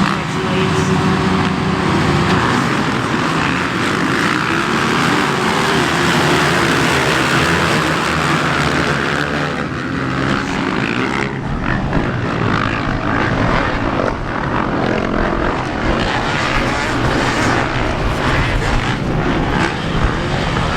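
Motocross dirt bike engine running under load, its pitch rising and falling as the throttle is worked, turning rougher and choppier with knocks from about ten seconds in.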